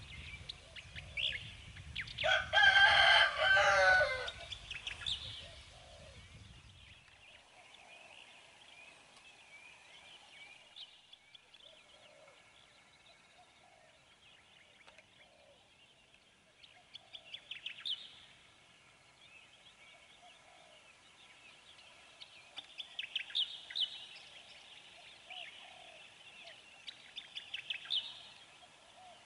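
A rooster crows once, loudly, for about two seconds, starting about two seconds in, over a low rumble that stops at about seven seconds. Small birds chirp and twitter, with busier bursts of chirps later on.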